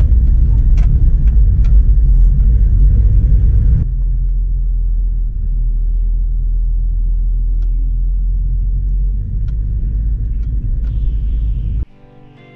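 Land Cruiser driving over a sandy off-road track: a loud low rumble of engine and tyres with scattered light ticks, dropping to a steadier, quieter rumble about four seconds in. Near the end the rumble cuts off and acoustic guitar music begins.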